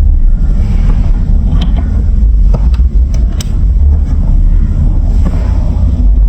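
Marbles rolling down a plastic building-block marble run: a loud, steady low rumble with scattered sharp clicks as the marbles knock against the track.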